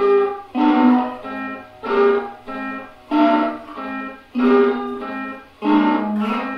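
Layered guitar loops playing a repeating figure of plucked chords, one roughly every half second or so, alternating louder and softer strokes.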